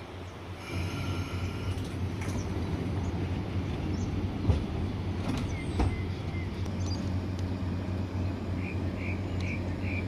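Sydney electric suburban train running at the station platform: a steady low hum that swells about a second in, with two sharp clunks midway and a run of short high chirps near the end.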